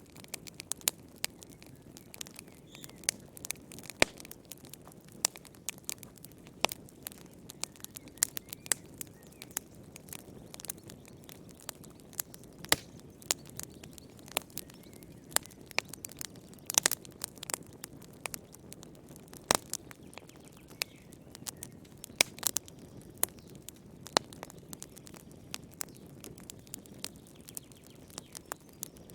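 Fireplace fire crackling: frequent irregular pops and snaps, several of them sharper and louder, over a faint steady hiss of burning.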